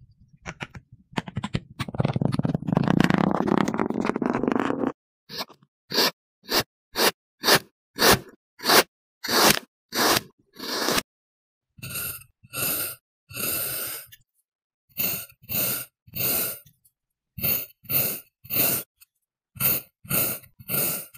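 Kinetic sand crunching: about five seconds of continuous crunchy scraping as sand is pressed down into a glass with a wooden tamper. This is followed by a long run of short, separate crunchy strokes, roughly one to two a second, as a knife slices through the packed sand.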